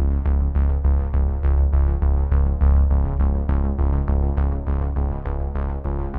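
Background electronic music: quick repeated synthesizer notes, about four a second, over a sustained low bass.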